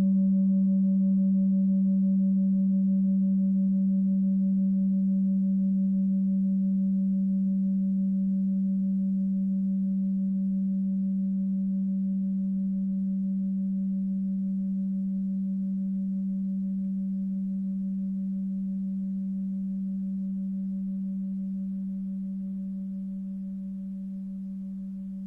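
Singing bowl ringing out in one long, steady low tone with a faint pulsing overtone above it, slowly fading away.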